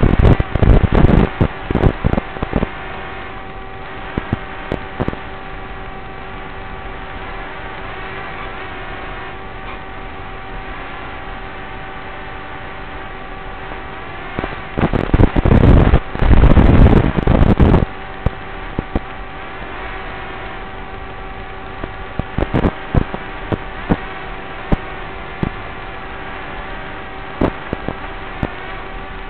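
Steady electrical hum and hiss from an analog FPV video link's audio, with two flat tones that never change pitch. Loud bursts of rough static at the start and again about halfway through, where the signal breaks up, plus scattered crackles.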